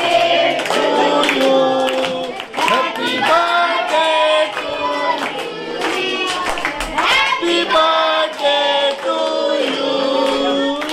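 A group of voices singing a song together over music, with hands clapping along.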